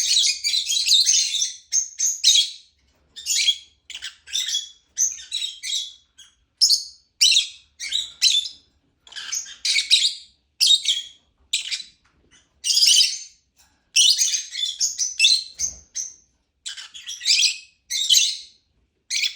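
Lovebird chirping: rapid, high-pitched chirps in short bouts of about half a second to a second, one after another with brief pauses between.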